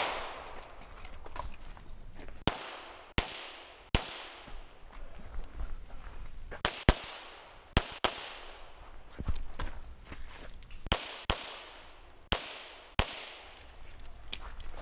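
9mm Glock 34 pistol shots, about a dozen, fired singly and in quick pairs with pauses between strings. Each shot has a short echo.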